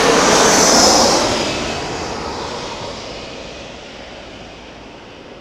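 easyJet Airbus A320-200 jet airliner passing overhead on its landing approach: a loud engine rush, loudest about a second in, then fading steadily as it moves away.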